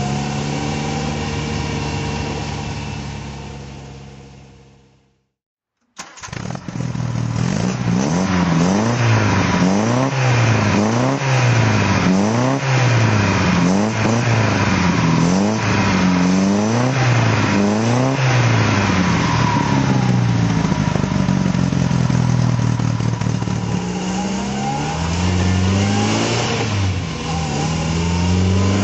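1960 MGA Twin Cam's 1.6-litre twin-overhead-cam four-cylinder engine running steadily, then fading out after about five seconds. After a second of silence it is blipped repeatedly, the revs rising and falling about eight times in ten seconds. It then settles back to idle, with a few more blips near the end.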